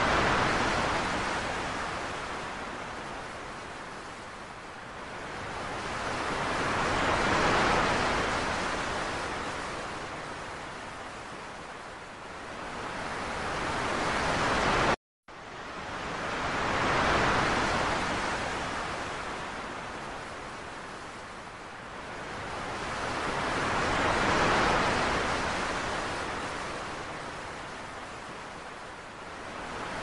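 Ocean surf: waves breaking and washing back, the rush swelling and fading roughly every seven seconds. There is a brief cut to silence about halfway through.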